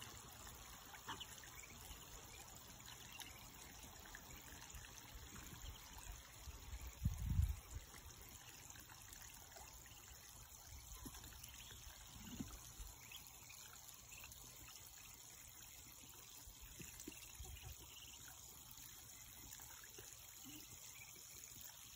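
Faint trickling and splashing of shallow water as Muscovy ducks and ducklings dabble and wade in a muddy puddle, with scattered light ticks and a low bump about seven seconds in.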